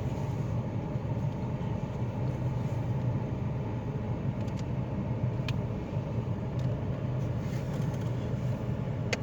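Steady rain falling, with a low steady rumble underneath and a few sharp ticks of single drops.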